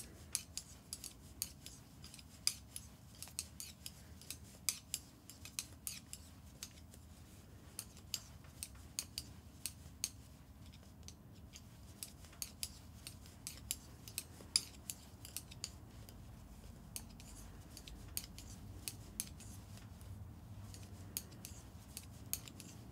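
Metal knitting needles clicking lightly against each other while a row is purled in chunky yarn, in irregular sharp clicks about two a second.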